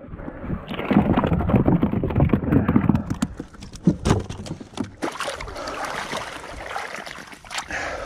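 Rustling and knocks of gear being handled and footsteps on a mudflat, with a few sharp knocks in the middle. Water sloshes near the end as a flounder set net is lifted from shallow water.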